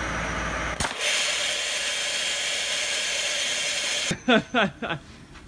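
A 60,000 PSI waterjet cutter fires straight down into a glass Coca-Cola bottle: a sharp crack about a second in, then a loud steady hiss for about three seconds that cuts off suddenly. The jet breaks through the glass bottom and blows the top off the bottle.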